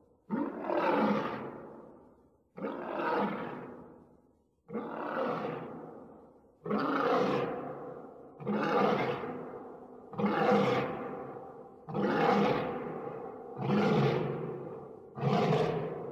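Lion roaring: a run of about nine roars, each starting sharply and fading away, coming roughly every two seconds and slightly closer together toward the end.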